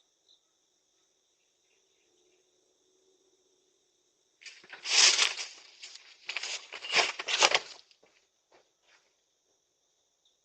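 Insects trilling steadily in two high, thin bands. A loud rustling, scraping noise in several surges starts a little under halfway through and lasts about three and a half seconds, followed by a few faint ticks.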